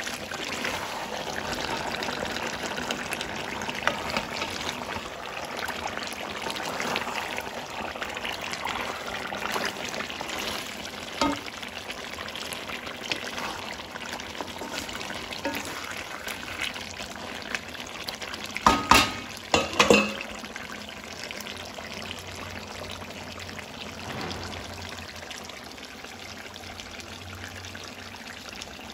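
Chicken curry sizzling and bubbling in a kadai while a wooden spatula stirs through it. A few loud knocks come about two-thirds of the way through.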